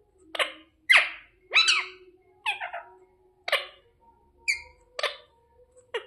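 Indian ringneck parrot giving a series of short, sharp squawking calls, about eight in quick succession.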